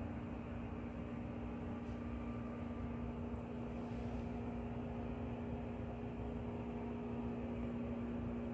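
Steady mechanical hum with a constant low tone and a faint hiss, unchanging throughout.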